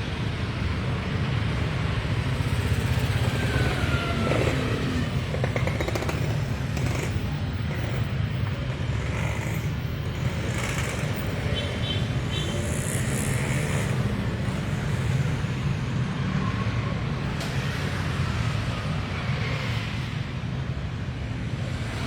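Street traffic noise with a steady low engine hum underneath.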